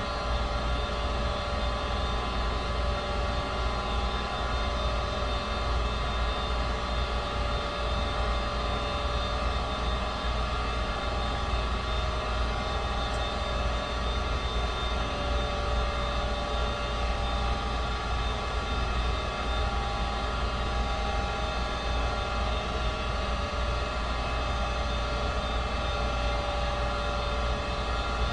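Home heating equipment running steadily: a fan's whirr with a low rumble and several steady humming tones.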